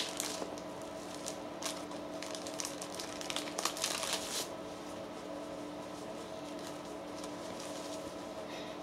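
Clear plastic bag and bubble wrap crinkling and rustling as hands unwrap a cloth, in short crackles for the first four seconds or so. Under it runs a steady low hum.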